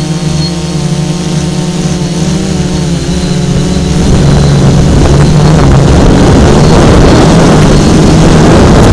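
FPV multirotor drone's electric motors and propellers buzzing as heard by its onboard camera, a steady pitched hum that wavers slightly. About four seconds in the throttle goes up and the sound grows louder and noisier with rushing air.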